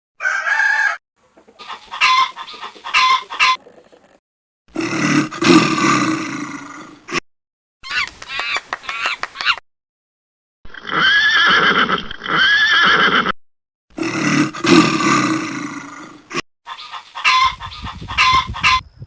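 Chickens calling in a run of about seven short separate recordings, each cut off by a brief silence: hens clucking in quick repeated notes and roosters crowing in longer drawn-out calls.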